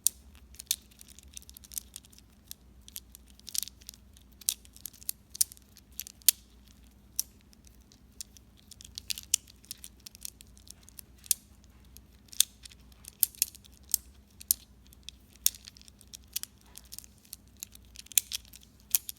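Metal infinity cube being flipped and folded in the hand, its metal blocks clicking against each other in quick, irregular clicks, several a second.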